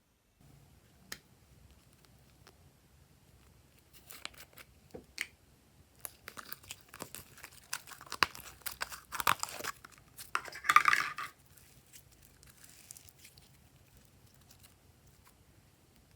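Close-up handling of slime and its containers: sticky crackling, tearing and clicking noises. They grow denser around the middle, with the loudest crackling burst about eleven seconds in, then fade to faint handling sounds.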